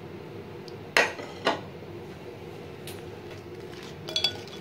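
Metal spoon knocking and clinking against a glass bowl of yogurt while fried bhallay are stirred under: two sharp knocks about a second in, then a few ringing clinks near the end.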